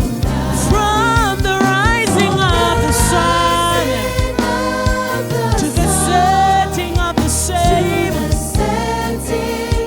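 Live gospel worship music: a band with bass and drums and singers. The sung words are not picked up by the speech recogniser.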